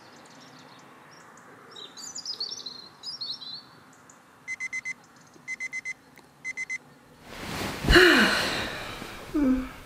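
Birds chirping, then an electronic alarm clock beeping in three quick runs of a few beeps each. A rising whoosh follows and ends in a loud thump about eight seconds in.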